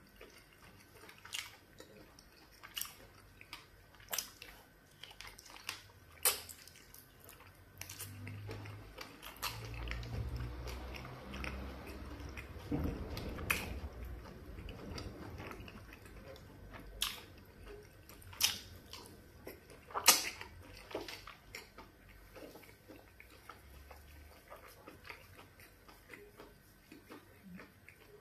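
Close-up eating sounds of fufu with garden egg soup eaten by hand: chewing and wet mouth smacks, with scattered sharp clicks. A low rumble comes in about a third of the way through and fades out past the middle.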